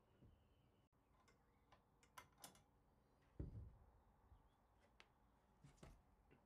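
Near silence with a few faint clicks and one soft knock: handling noises as a mirror and its mounting bracket are held and positioned against a wooden wall.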